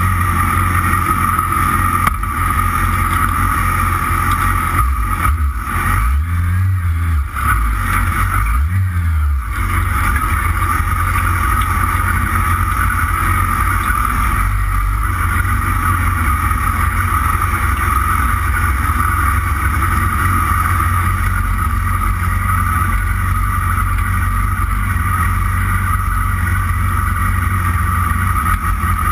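Yamaha R6's inline-four engine running at low revs as the motorcycle rolls along slowly, heard close from a handlebar-mounted camera; the revs rise and fall briefly a couple of times a few seconds in.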